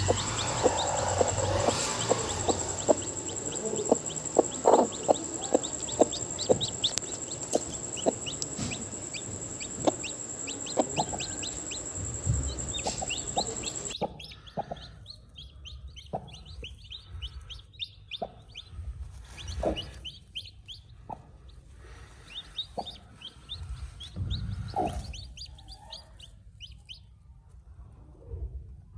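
Chickens clucking, with many short high peeps over the clucks. A steady high whine runs under the first half and stops abruptly about halfway, where the background drops.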